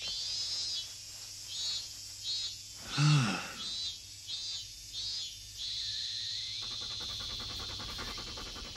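Cicadas calling in high pulsed bursts, about one every half second, that merge into a steady drone; a short loud falling vocal sound comes about three seconds in. From about seven seconds a dog pants rapidly.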